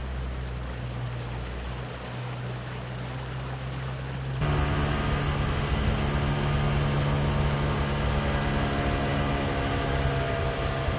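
Outboard motor running steadily, driving a small boat over open water, with water and wind noise. About four seconds in the sound changes abruptly to a louder, even engine hum with clear steady tones.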